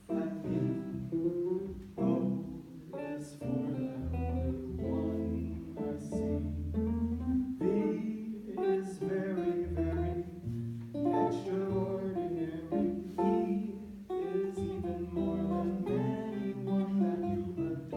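Jazz guitar played solo, chords over low bass notes.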